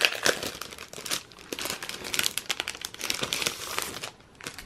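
Clear plastic packaging sleeve crinkling and crackling as paper planner inserts are pulled out of it; the crackling dies down about four seconds in.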